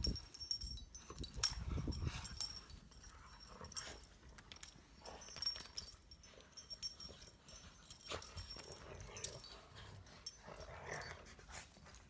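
Two lurchers play-fighting in fresh snow: irregular scuffling and soft thuds of paws and bodies in the snow, with brief dog noises now and then, the loudest right at the start.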